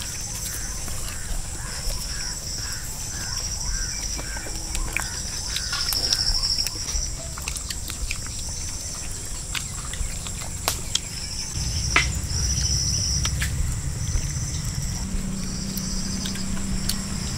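Rural outdoor ambience: insects trilling in repeated short bursts over a steady high drone, with a few scattered clicks and a low rumble that grows louder about two-thirds of the way through.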